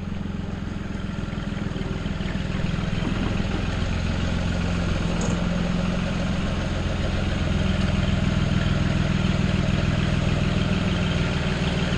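Tractor engine running steadily, growing a little louder over the first several seconds and then holding level.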